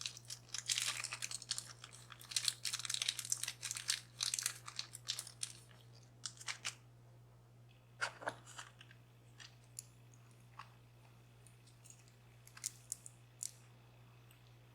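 Thin metal shim stock being handled and worked against a lock cylinder's clip groove: a dense run of crinkling and crunching with sharp clicks for about six seconds, then scattered small metallic clicks and ticks. A faint steady low hum runs underneath.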